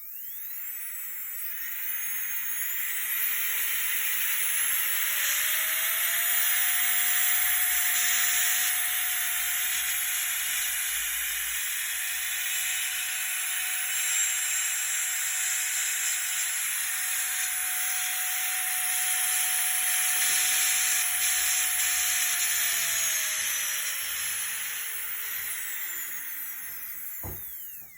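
Strong 207S electric nail drill running: its whine rises in pitch over the first few seconds as it speeds up, holds steady at high speed, then falls away near the end as it slows down, over a steady hiss. A short click comes just before it stops.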